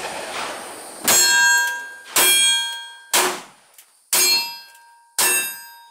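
Five revolver shots about a second apart, each followed by the ringing of a struck steel target.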